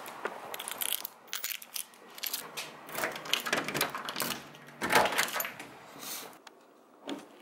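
A front door being unlocked and opened by hand: a run of metal clicks and rattles from the lock and handle, with a louder clack about five seconds in.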